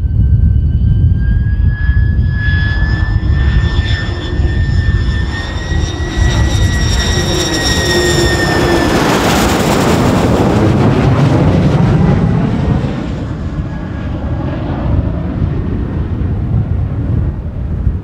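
Lockheed U-2's single turbofan jet engine on landing approach, passing low overhead: a high whine rises slightly in pitch as the aircraft nears, then breaks off about nine seconds in as a loud rush of jet noise sweeps over and fades away. Gusty wind buffets the microphone throughout, giving a heavy low rumble.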